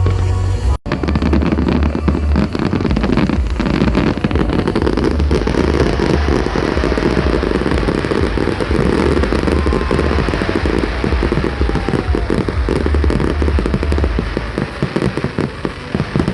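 Large aerial fireworks display going off in a dense barrage: continuous crackling and popping over a low booming rumble, with faint whistling glides partway through. The barrage thins out near the end.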